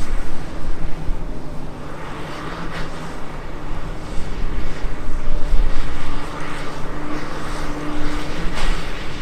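Komatsu PC360LC excavator's diesel engine running steadily under working load, with a couple of sharp knocks partway through and near the end.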